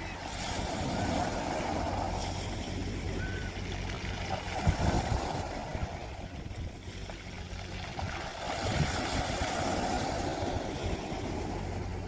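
Sea waves washing in, the water noise rising and falling in swells about every four seconds over a steady low hum, with a few low thumps about five seconds in.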